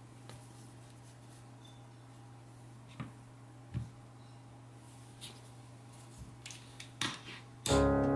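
Light clicks and knocks of a small acrylic leather strap cutter being handled on a cutting mat and fastened with a plastic clamp: a couple of isolated clicks, then more of them close together near the end, over a faint steady hum. Music comes in just before the end.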